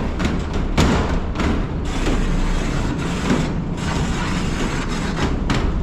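Large shop door being rolled open: a steady rumbling racket with irregular knocks and clatters.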